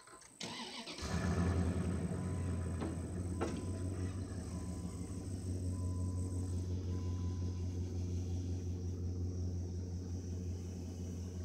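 Pickup truck's engine starting about a second in, then running steadily while the truck reverses slowly.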